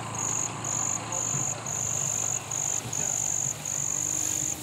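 Insects trilling: a shrill, high buzz that comes in pulses of about half a second to a second, separated by short breaks.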